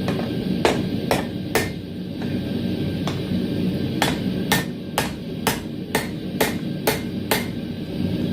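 Blacksmith's hammer striking the 10mm square steel tong blanks on an anvil while forging the bends. Three blows come in the first two seconds, then a steady run of about eight blows at roughly two a second, over a steady low background noise.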